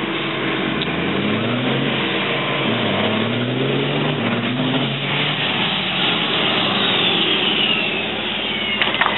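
Two race trucks' diesel engines accelerating hard, the pitch climbing and dropping back several times as they shift up through the gears. About six seconds in the engines settle as the trucks slow to a stop, with a high whistle falling in pitch.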